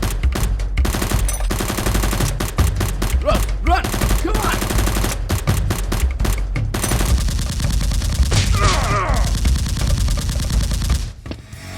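Rapid machine-gun-style gunfire in quick bursts over a steady low rumble, with a shout or two in the middle.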